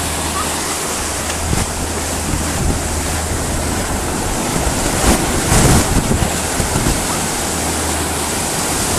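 Ocean surf breaking and washing over the shallows, with wind buffeting the microphone in a few louder gusts about five to six seconds in.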